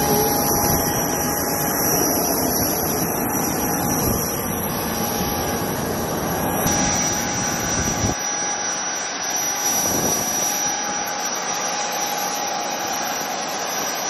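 Jet aircraft engines running on an airport apron: a steady rushing noise with a constant high whine and a steady mid-pitched tone. About eight seconds in, the low rumble drops away and the whine continues.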